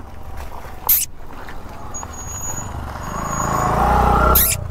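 A motor vehicle's engine growing steadily louder over a couple of seconds as it approaches, then cutting off abruptly near the end, with a short rustling burst about a second in.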